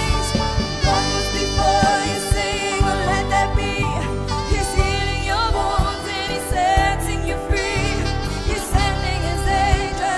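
Background music: a song with sung vocal lines that waver in pitch, over steady bass and percussion.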